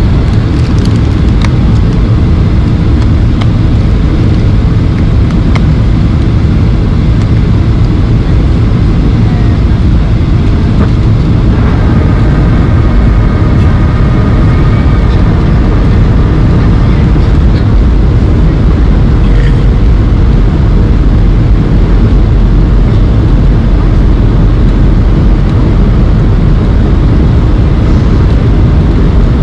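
Steady, loud cabin noise of a Boeing 737-800 in flight: the low, even rush of its CFM56 engines and the airflow over the fuselage.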